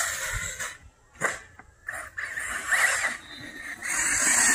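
HPI Vorza electric buggy's motor and geartrain, run on 6S with an 18-tooth pinion, whining at speed. The whine cuts out about half a second in, there is a single sharp knock about a second in, then a few short throttle blips, and near the end the high whine comes back at full power.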